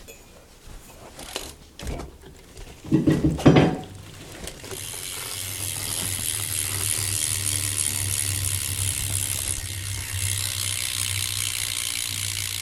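BMX sealed rear hub freewheeling as the rear wheel spins: a steady, rapid ratcheting buzz of pawl clicks that starts about four and a half seconds in, after a few knocks and a louder clatter around three seconds in.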